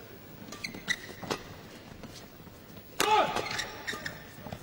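Badminton court between rallies: a few light taps and clicks on the court, then a short voice call about three seconds in.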